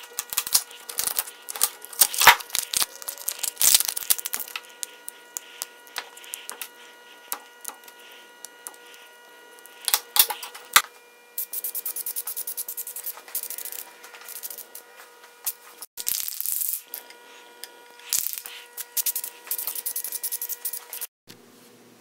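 Hand work on cured casting resin and steel cookie-cutter molds: a putty knife scraping resin off a board, and the resin casting being pried and pushed out of the mold. It comes as a string of sharp scrapes, clicks and rubbing, loudest a couple of seconds in and again around ten seconds in, over a faint steady hum.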